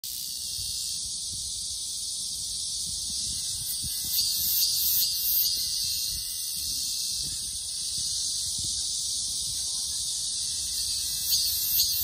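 Cicada singing: a steady, high-pitched buzz, pulsing louder about four to five seconds in and again near the end.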